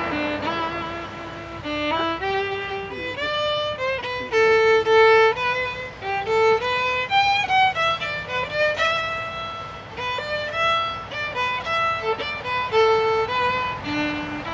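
Solo instrumental music: a single melody played one note at a time, with a few notes held for about a second.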